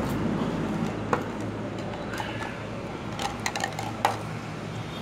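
Tableware clinking on a table: a single sharp tap about a second in, then a quick cluster of clicks and taps near the end, over a steady low hum.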